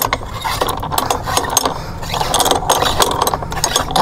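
Quick, irregular clicking and ratcheting from a string trimmer's trim-ball head being turned by hand as its end bolt and lock washer are screwed onto the shaft.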